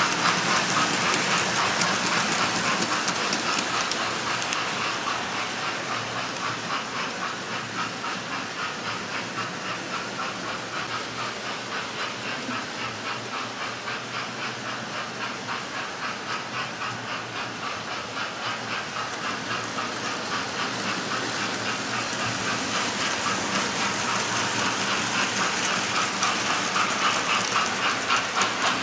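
Model railway trains running around a layout: a steady whirr and hiss of running locomotives with regular clicking of wheels over the rail joints. It dips in the middle and grows louder near the end as a train passes close by.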